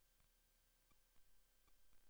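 Near silence: faint steady hum with a few faint, irregular clicks.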